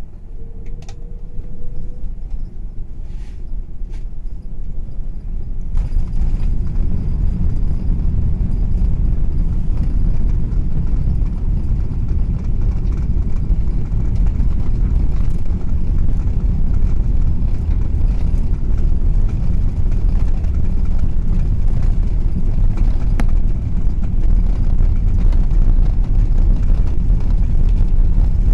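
Airbus A380 cabin noise during takeoff: a deep rumble of engines and runway that builds over the first few seconds, grows sharply about six seconds in, then stays loud and steady.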